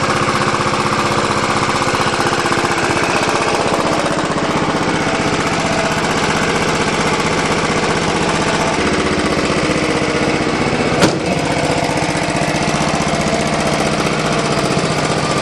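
Kawasaki engine of a John Deere lawn tractor running at a steady, even speed on its newly replaced governor, which seems set just right. A single brief sharp click sounds about eleven seconds in.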